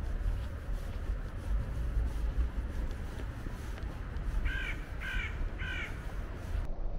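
A crow cawing three times in quick succession, over a constant low rumble.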